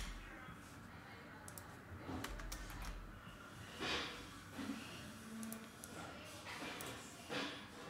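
Sparse key presses and clicks on a computer keyboard, with a short breath noise about four seconds in.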